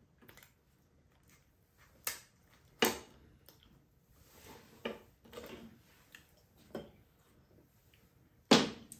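Metal kitchen scissors and tongs clicking and clinking against ceramic plates as food is cut up: about five sharp clicks spread apart, the loudest near the end.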